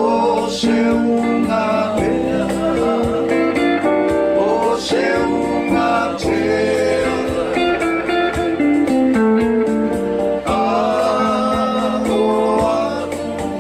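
Samoan sing-along song performed live: a voice singing over guitar accompaniment with a steady beat.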